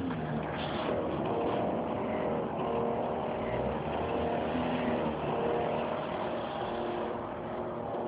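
Motor and drive of a Grote 7622 rotating amber beacon whirring, a humming tone that swells and fades in a repeating cycle of about a second.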